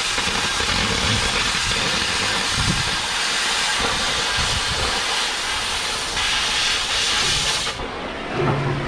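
Oxy-fuel cutting torch cutting through steel plate: a steady, loud hiss of the gas jet. The hiss drops away sharply near the end as the torch comes off the cut.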